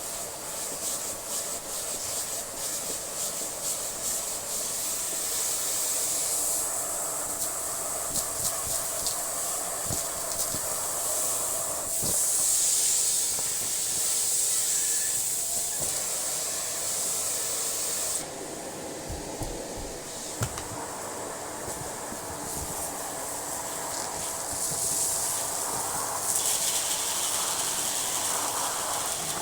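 Dyson upright vacuum cleaner running: a steady rushing suction hiss over a faint motor tone, the hiss growing and easing every few seconds as the vacuum is worked.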